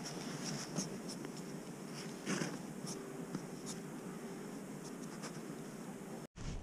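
Spinning reel being wound in after a cast: a faint, steady scratchy whirr with a few soft clicks. It cuts off suddenly near the end.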